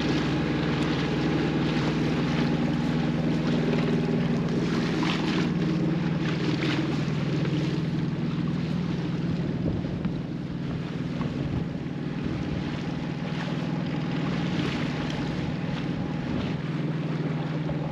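A sailboat's inboard engine running steadily under way, with wind and water noise over it; it gets a little quieter about halfway through.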